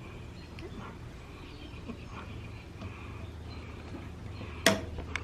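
Faint small clicks and rubbing over a steady low hum, then one sharp click near the end: hands working a stiff plastic sleeve off a motorcycle shift lever.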